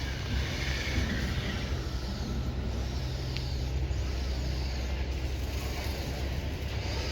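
Diesel engine of heavy construction machinery, likely an excavator, running steadily, with a single sharp click about three and a half seconds in.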